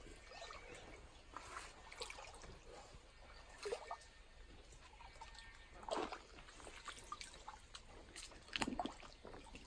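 Faint splashing and dripping of shallow stream water as a person wades and works a mesh fish trap into place by hand, with about four louder splashes at irregular intervals.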